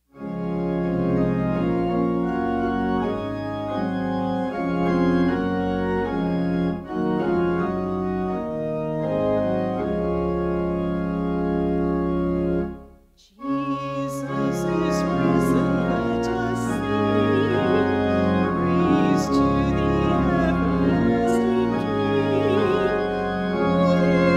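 Church pipe organ playing a hymn in sustained, changing chords. After a short break about halfway through, the organ resumes and singing voices join it for the closing hymn.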